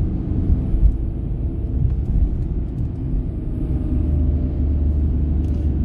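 Steady low rumble of a car's engine and tyres heard from inside the cabin while driving slowly along a town street.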